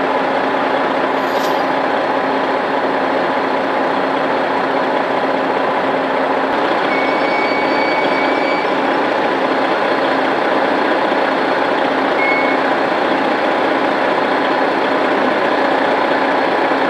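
Heavy diesel tow trucks running steadily at an accident scene. Two short high electronic tones sound near the middle.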